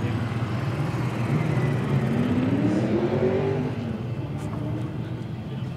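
A vehicle engine accelerating, its pitch climbing for about two seconds before it fades away, over a steady low engine rumble.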